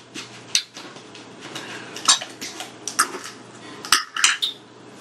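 Eating sounds: a fork clicking against a plate about five times, with chewing in between.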